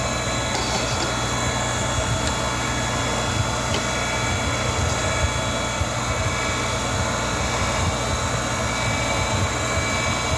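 Chainsaw chain grinder's electric motor running steadily with its CBN wheel spinning, a constant hum with several fixed whining tones.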